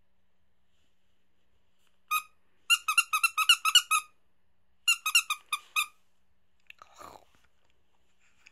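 Squeaker inside a plush squirrel toy, squeezed in rapid high-pitched squeaks: one squeak, then a quick run of about eight, then a second run of about five. A faint soft rustle follows near the end.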